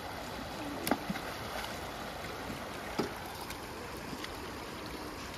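Steady rush of a shallow, fast-flowing river running over gravel, with two short, sharp knocks, one about a second in and one about three seconds in.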